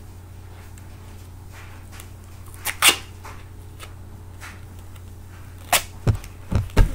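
Duct tape pulled off the roll and torn by hand: two short sharp rips, followed by a few soft thumps near the end.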